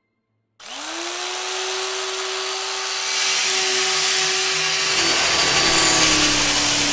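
Electric carving knife switched on about half a second in, its motor buzzing steadily with a high hiss; the pitch sags slightly near the end.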